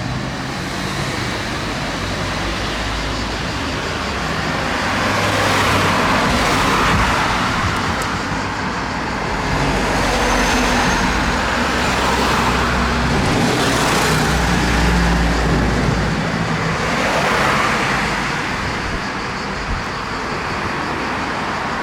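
Road traffic: engines running and several vehicles passing, swelling and fading a few times.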